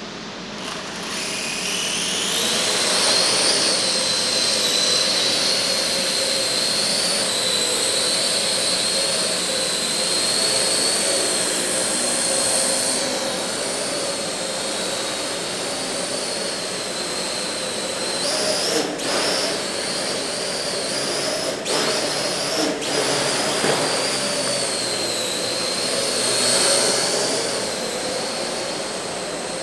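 Parrot AR.Drone 2.0 quadcopter's four electric motors and propellers spinning up about a second in as it takes off. It then settles into a steady high whine that wavers in pitch and loudness as the drone hovers and manoeuvres.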